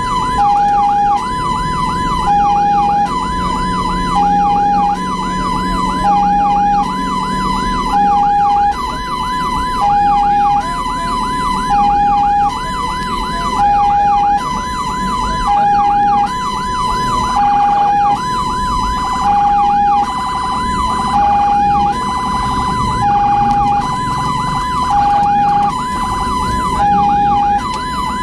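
Ambulance siren sounding a two-tone hi-lo pattern, switching between a higher and a lower note about every second. For roughly the first third a fast rising-and-falling yelp tone plays over it, with road and engine rumble underneath.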